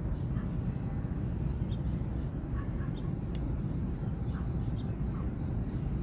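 Steady low rumble of outdoor background noise, with a few faint short high chirps scattered through it.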